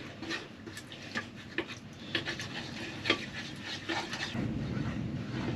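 Spoon stirring a tomato and pepper paste sauce in a bowl, giving irregular light clicks and scrapes against the dish. A low rumble comes in near the end.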